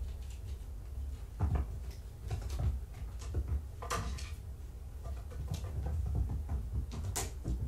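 Scattered light knocks, taps and scrapes of kittens scrambling on a carpeted cat tree, with a sharper click about four seconds in and another near the end, over a steady low hum.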